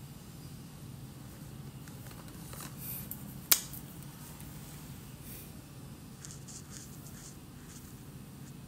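Felt-tip marker stroking on paper: short, faint, scratchy strokes that begin about six seconds in. A single sharp click about three and a half seconds in, over a steady low hum.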